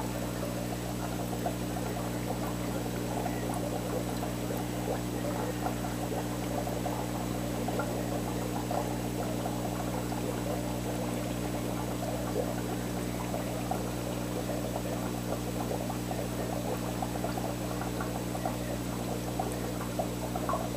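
Aquarium pump running with a steady low hum, over a constant bubbling, trickling water sound.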